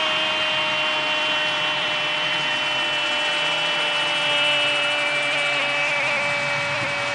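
A television football commentator's long held goal cry, a drawn-out 'goooool' on one high, nearly steady note, with crowd noise under it.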